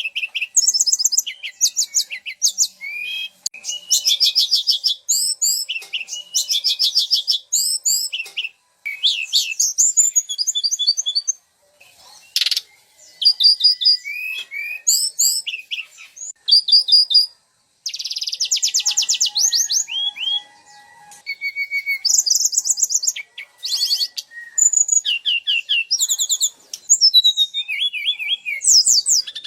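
Songbird singing without a break in fast, varied, high-pitched phrases of rapid trills and chips, with short pauses between phrases.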